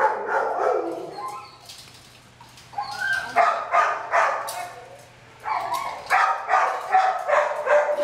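Dogs in shelter kennels barking in runs of quick barks, several a second, with short pauses between the runs.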